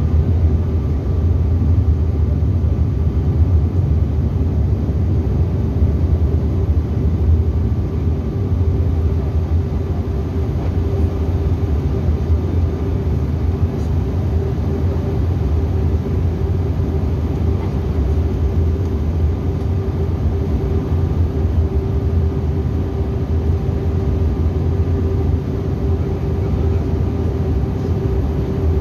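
Cabin noise of a Bombardier CRJ900 at takeoff and initial climb: its rear-mounted General Electric CF34 turbofans at high thrust give a steady low rumble with a held hum above it.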